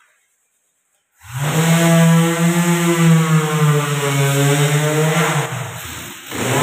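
Electric orbital sheet sander switched on about a second in and run against a wooden door frame, its motor a loud steady hum whose pitch wavers as it is pressed on the wood. It eases off briefly near the end, then picks back up.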